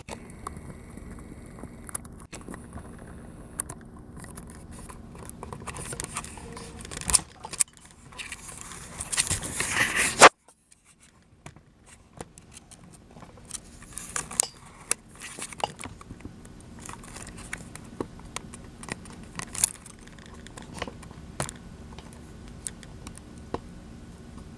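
Handling noise from a camera being picked up and carried by hand: rustles, scrapes and small clicks, with a louder rustle that cuts off abruptly about ten seconds in.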